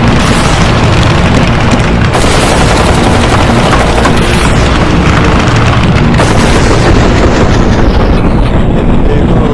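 Loud background music with heavy booming percussion, dense and unbroken, shifting abruptly about two seconds in and again about six seconds in.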